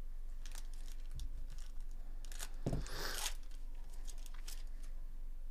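Foil wrapper of a Bowman Chrome baseball card pack crinkling, then torn open with one loud rip a little under three seconds in. More crinkling follows as the cards are slid out of the pack.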